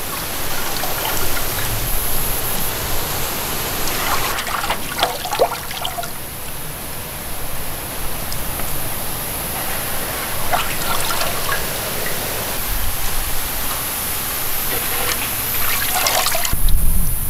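Water splashing and trickling as cut squid pieces are washed in water, with busier bursts of splashing about four seconds in, around ten seconds in, and near the end.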